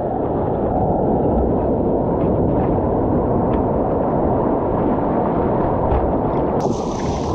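Rushing whitewater rapids: a steady, muffled rumble of churning river water, with a faint hiss creeping in near the end.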